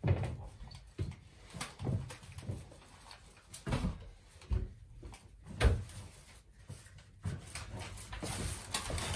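Footsteps and soft knocks of shoes as sneakers are stepped out of and slippers put on, with a plastic shopping bag rustling.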